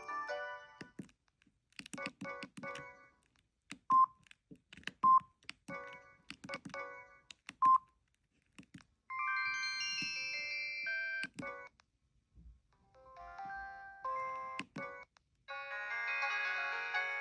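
Samsung SGH-E890 mobile phone playing ringtone and alert-tone melodies through its small speaker, one short snippet after another, each cut off abruptly. Three sharp short beeps sound between the snippets in the first half, and the last melody plays a little longer, for about three seconds.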